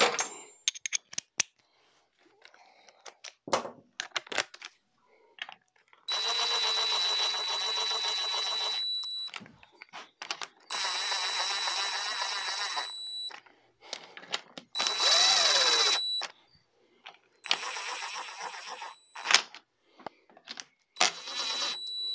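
Cordless DeWalt impact driver spinning gearbox cover bolts in with a Torx socket. It runs in five short bursts of a second or two each, starting and stopping abruptly, with a high motor whine. The bolts are only run down, not tightened. Between the runs come light metallic clicks of bolts and sockets being handled.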